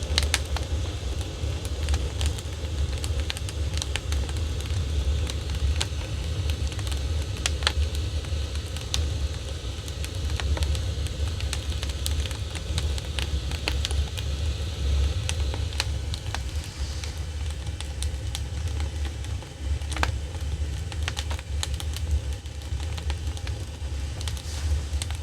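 Strong wind buffeting the microphone: a deep, uneven rumble with scattered sharp clicks and crackles.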